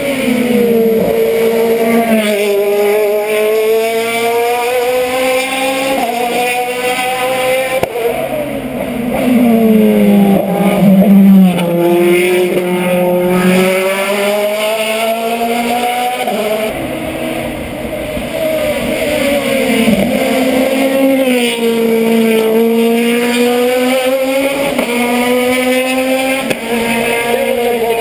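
Race car engine working hard up a hillclimb, its pitch rising and falling again and again through acceleration, gear changes and braking for the bends. It is loudest about ten to twelve seconds in, as the car comes closest.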